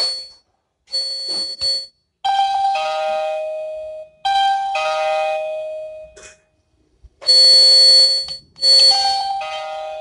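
Video door phone intercom ringing with an electronic doorbell chime melody, repeating in phrases of one to two seconds with short silent gaps between them, the ring of an incoming call on the intercom.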